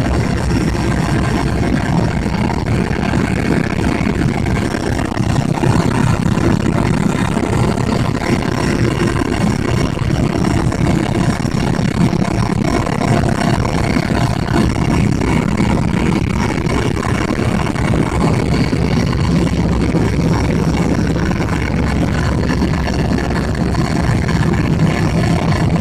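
Helicopter in steady flight, heard from inside the cabin: a constant heavy drone of engine and rotor, with steady high turbine whine tones above it.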